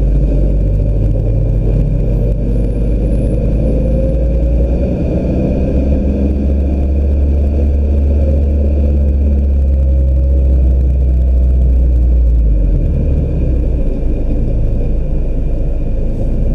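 2016 Mazda MX-5 Miata's four-cylinder engine running, heard from inside the car over a steady low rumble of road and wind noise. The engine pitch rises and falls gently, and the low rumble changes about thirteen seconds in.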